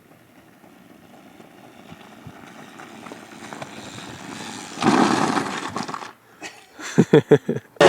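1999 Kawasaki KX250 two-stroke single being bump-started: a rising rolling noise, a loud rough burst about five seconds in, then several sharp firing pops near the end as the engine catches.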